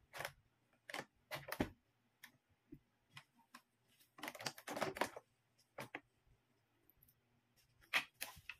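Plastic bottles of dishwashing liquid being handled and packed into a fabric bag: a run of irregular knocks and clicks, with a denser stretch of handling about four seconds in.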